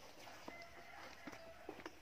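Faint knocks and scuffs as a plastic basin is set down on the ground, with a faint held tone in the background for about a second in the middle.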